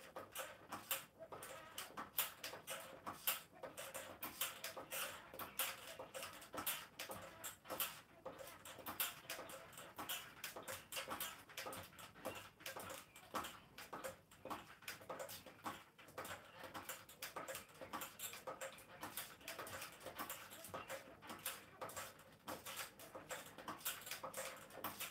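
Mini stepper in use, its pedals squeaking and clicking in a steady rhythm with each step.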